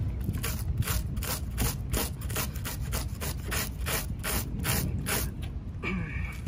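A regular kitchen knife scraping the scales off a large flounder on a wooden cutting board, in quick, even strokes about four or five a second that stop shortly before the end.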